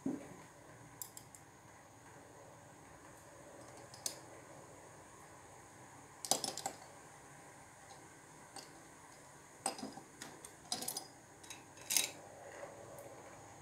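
Irregular light clicks and clatters of small hard objects being handled on a desk, some in quick clusters, over a faint steady hiss.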